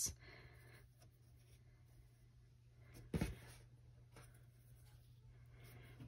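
Faint rustling and small ticks of string being handled and pulled tight while tying knots, over a steady low hum, with one short bump about three seconds in.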